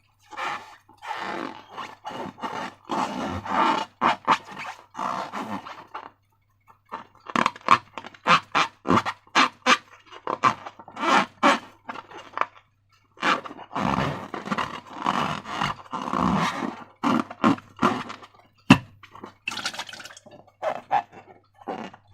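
Slime being squished and stretched by hand close to the microphone: irregular sticky squelches and crackles, with a couple of brief pauses and one sharp click a few seconds before the end.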